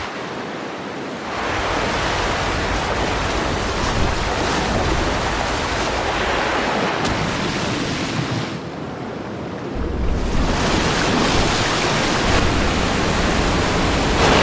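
Steady rushing of a waterfall's falling water, a loud even hiss. The tone shifts a few times, and the high hiss thins out for about a second just past the middle.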